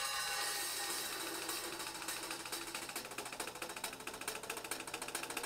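Drum kit played quietly: a cymbal rings and fades over the first second, then a fast, even run of stick strokes carries on, in the soft passage of a drum solo.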